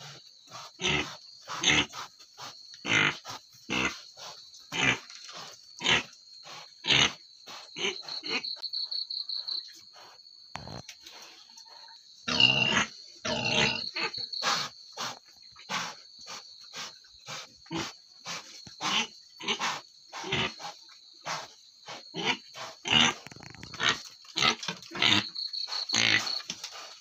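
Sow in labour grunting during her contractions, short grunts coming about once a second, with a longer, louder one about halfway through. Crickets chirp steadily behind.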